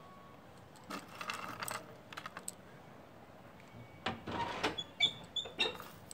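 Hands handling small cut wooden twig pieces and pressing them into potting soil in a terracotta pot. There are bursts of rustling and light clicking, about four clusters, and a few short high clinks near the end.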